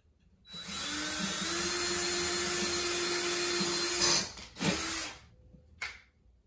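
Cordless drill boring a pilot hole for a blind-bracket screw: one steady run of about three and a half seconds, then a short second burst. A single click follows near the end.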